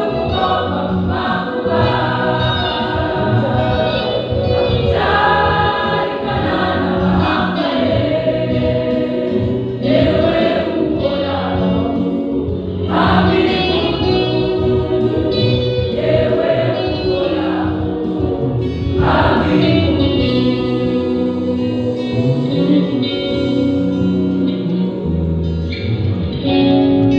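A large mixed church choir singing a gospel song in harmony, with no break.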